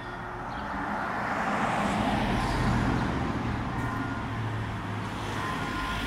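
A road vehicle passing close by: a broad rush of noise that swells to its loudest a little under three seconds in, then eases off.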